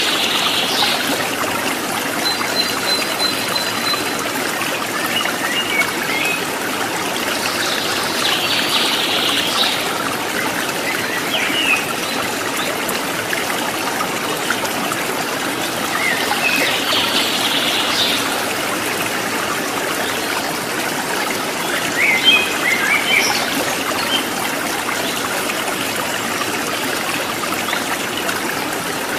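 Steady flowing water, like a stream, with short bird chirps every few seconds.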